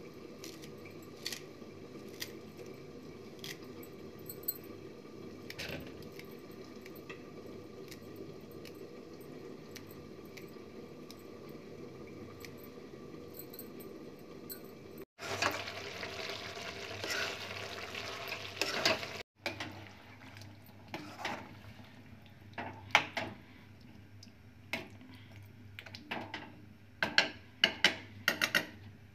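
A knife chopping fresh coriander leaves in a steel bowl, heard as sparse clicks over a steady low hum. About halfway there are a few seconds of hissing. After that a steel ladle clinks and scrapes in a metal kadhai, the clinks growing busier toward the end.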